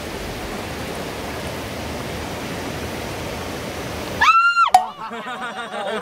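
Steady rushing of a shallow mountain stream over rocks. About four seconds in it breaks off for a short, loud, high-pitched tone that rises and falls within half a second, followed by voices.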